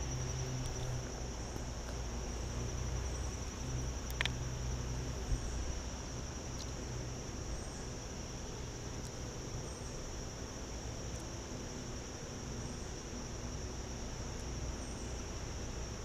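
Insects trilling steadily in one high, finely pulsed note, with a low rumble beneath it in the first few seconds and a couple of small clicks about four and five seconds in.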